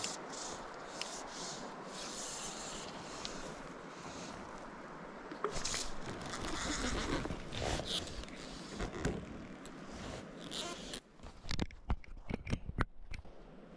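Shallow river running over stones, with scraping and swishing of fly line being cast and handled, and several sharp clicks or knocks near the end.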